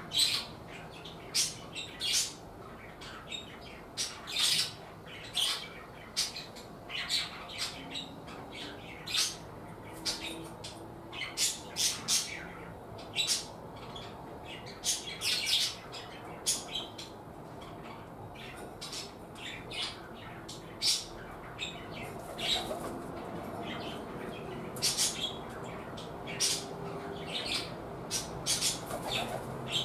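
Small birds chirping: short, sharp, high calls coming in quick irregular runs, a few a second at times.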